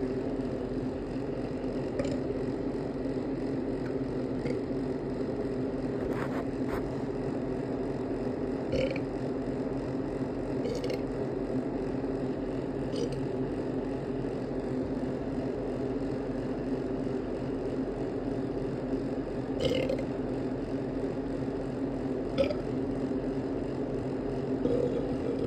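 A person burping several times, short burps scattered over a steady low hum; the loudest come about 20 and 22 seconds in.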